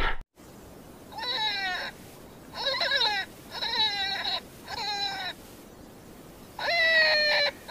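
A series of bleating distress cries: four short wavering calls about a second apart, each falling in pitch, then a longer, louder one near the end.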